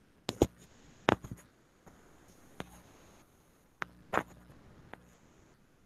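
A few scattered sharp clicks and taps, some in quick pairs, over quiet room tone.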